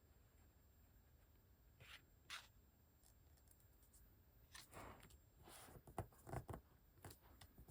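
Near silence broken by faint rustles and light taps of paper and card being handled: two brief ones around two seconds in, then a busier run from about four and a half to seven seconds.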